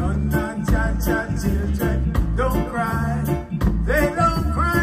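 Live roots reggae band in the nyabinghi drumming style: hand drums and a large bass drum keep a steady beat under a bass line and guitar, while a lead voice sings.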